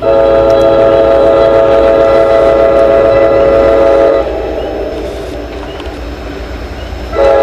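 Passenger train's air horn sounding a chord of several steady notes: one long blast of about four seconds, a pause, then a second blast starting near the end, as the train nears a grade crossing.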